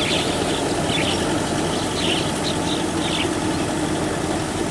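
TAFE 5900 tractor's diesel engine running steadily under load as it pulls a rotary tiller through waterlogged paddy mud.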